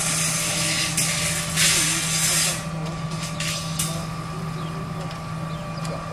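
Construction-site noise: a steady low hum, with loud hissing in the first two and a half seconds and a few sharp knocks soon after.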